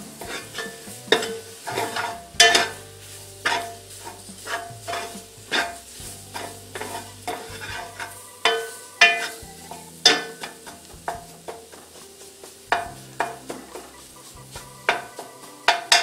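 Metal spoon scraping and knocking against the bottom and sides of an aluminum pot while stirring onions, bell pepper and celery fried down with roux and tomato paste, over a faint sizzle. The strokes come irregularly, roughly one a second, each ringing briefly off the metal pot.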